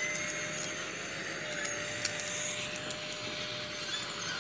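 JCB backhoe loader's diesel engine running steadily while its excavator bucket digs wet mud, with a steady whine over the engine drone.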